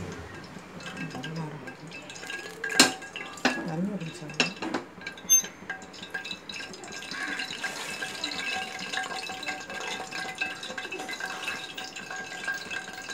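Ghee melting in hot sesame oil in a pressure cooker, with a faint steady sizzle and crackle. Two sharp metal clinks come about three seconds in.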